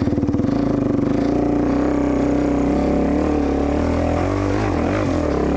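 Dirt bike engine pulling away from a slow, pulsing idle: the revs rise within the first half second, then it runs steadily under load, with the pitch rising and falling a little around four to five seconds in.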